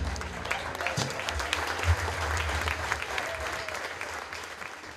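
Audience applauding at the end of a live song, the clapping dying away near the end.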